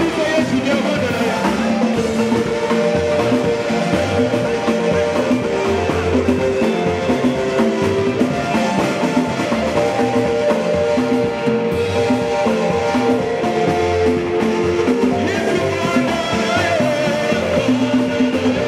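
Upbeat band music with drum kit and electric guitar playing continuously, loud throughout.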